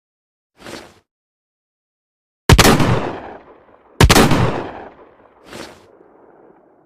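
Sawn-off Rossi Overland side-by-side shotgun fired twice, about a second and a half apart, each blast trailing off over about a second. A fainter short sound comes once before the shots and once after them.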